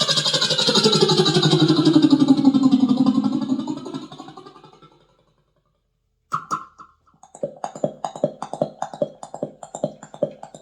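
Beatboxer's vocal sound effects made with voice and mouth: a long buzzing hum that falls in pitch and fades out, then, after a short pause, a brief tone and a fast, even run of mouth clicks and pops.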